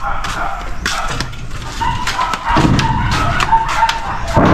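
Knocks and thumps of a worker climbing a tall extension ladder, his feet and hands striking the rungs several times.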